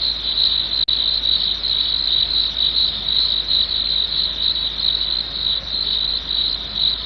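Crickets chirping: a continuous high, pulsing trill, with a momentary dropout about a second in.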